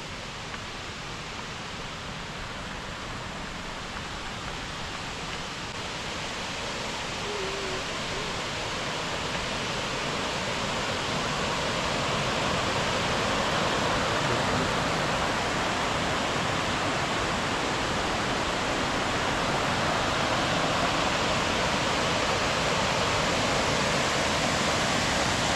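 Waterfall rushing steadily. It grows louder over the first twelve seconds or so, then holds at a steady level.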